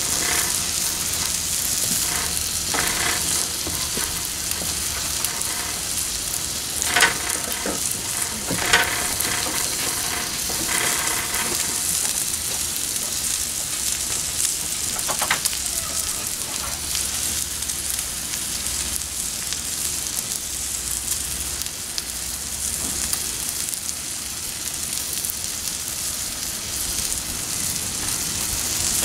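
A New York strip steak sizzling on a hot Pit Boss flat-top griddle: a steady frying hiss, broken by a few louder pops and crackles, the sharpest about 7 and 9 seconds in.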